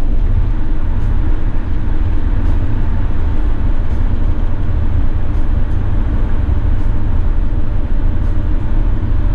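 In-cab noise of a 2016 Mercedes-Benz Sprinter 519 CDI minibus (3.0-litre V6 diesel) cruising at motorway speed: a steady, deep rumble of engine and road with a hiss of tyres and wind over it.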